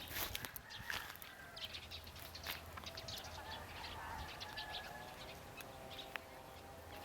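Birds chirping: many short, sharp chirps, with a few longer pitched calls in the middle.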